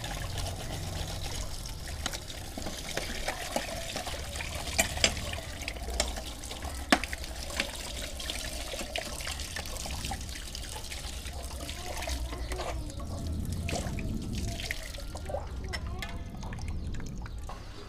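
Running tap water pouring over a CRT TV's printed circuit board and splashing into a basin of soapy water, with a few sharp clicks as the board is handled.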